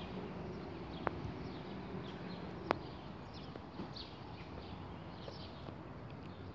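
Small birds chirping repeatedly over a faint, steady low rumble, with two sharp clicks about one and almost three seconds in.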